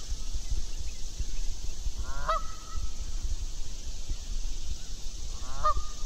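Canada geese honking: two short honks, one about two seconds in and another near the end, over a steady low rumble.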